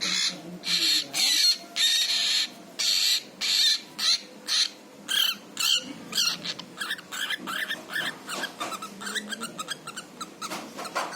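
Cockatiel screeching: a run of harsh squawks about two a second, then changing about halfway through to shorter chirps and warbling whistles.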